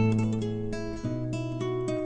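Background music: acoustic guitar playing notes over a held bass note that changes about halfway through.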